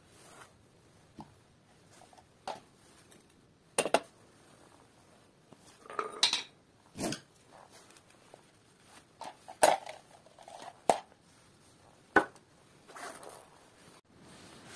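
Metal tools and motorcycle parts being handled and set down, with scattered sharp clinks and knocks every second or two.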